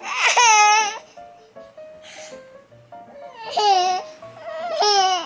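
A baby's high-pitched squealing vocalisations, three in a row, each under a second long, over soft background music.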